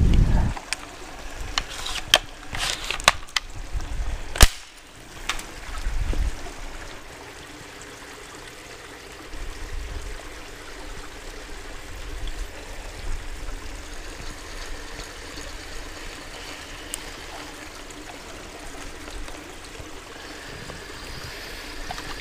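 A few sharp clicks and knocks from handling a toy rocket fishing rod and its reel, the loudest about four and a half seconds in, then the steady trickle of a slow creek.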